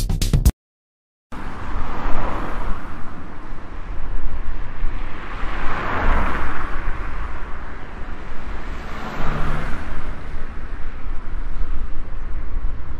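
Road traffic noise, a steady rush of cars with three vehicles passing by, about two, six and nine and a half seconds in. A snatch of electronic music cuts off at the very start, followed by a moment of silence.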